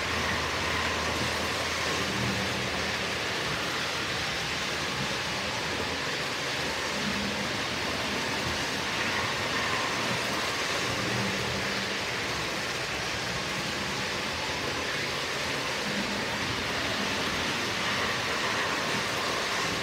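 Model trains running on a layout: a steady rolling noise of wheels on the track, with a faint low hum that comes and goes.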